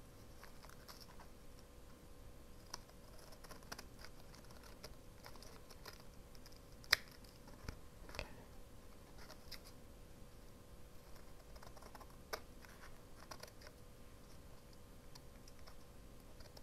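Scissors snipping through washi tape and card while trimming the edges of a paper tag: scattered small quiet snips and clicks, the sharpest about seven seconds in.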